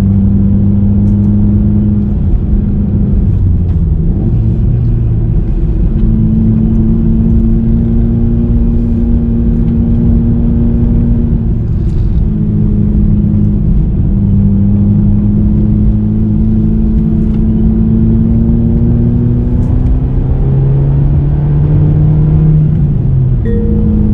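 Suzuki Swift Sport ZC33S's 1.4-litre turbocharged four-cylinder engine pulling the car uphill, heard from inside the cabin over dense tyre and road noise. The engine note changes pitch several times as the revs rise and fall, dropping lower about twenty seconds in and jumping back up near the end.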